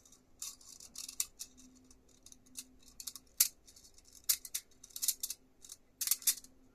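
A metal coil spring being fed through a 3D-printed plastic magazine body: irregular sharp clicks and scrapes of the coils against the plastic, a few louder clicks among them.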